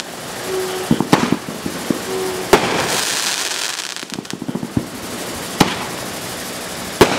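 Dominator Black Lightning firework cake firing: about six sharp bangs a second or so apart over a continuous crackling hiss from the bursting glitter stars.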